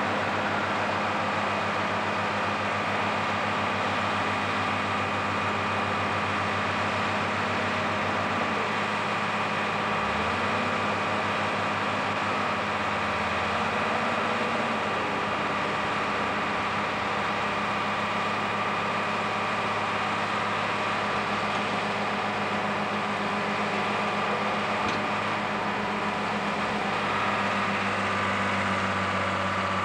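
Tractor engine running steadily as its hydraulics raise a high-tip trailer to tip a load of grass silage, the engine note shifting slightly partway through.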